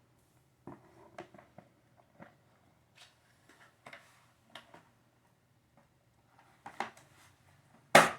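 Plastic toy parts being handled and fitted together: a run of light clicks and taps, with a sharper knock near the end.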